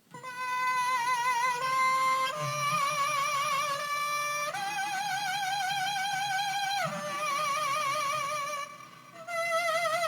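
Circuit-bent sound effects toy giving out a warbling electronic tone, its pitch jumping up or down to a new level every second or two. The tone drops out briefly near the end and comes back at a new pitch.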